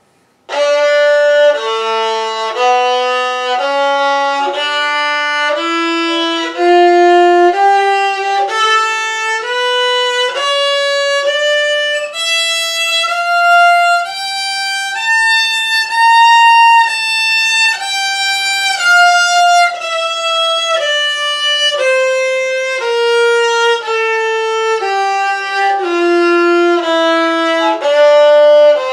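Violin playing a D minor scale in first position, one bowed note at a time. It climbs step by step from the low notes to a high peak about halfway through, then steps back down.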